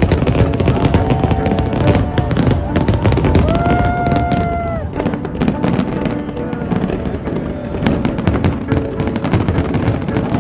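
New Year fireworks display: rapid, dense bangs and crackling from many shells going off. A held pitched call rises over it about three and a half seconds in and lasts just over a second.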